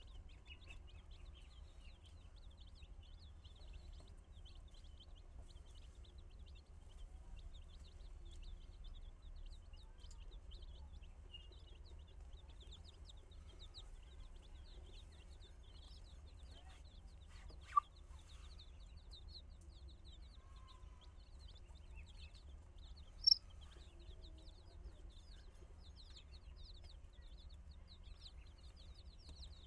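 A flock of baby chicks peeping steadily in many rapid, short, high chirps, with two brief louder sounds in the second half.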